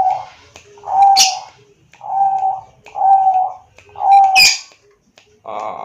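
Zebra dove (Bangkok-bred perkutut) cooing: a run of clear, even notes about one a second. Two short, sharp high-pitched sounds fall over the coos, about a second in and again past the fourth second.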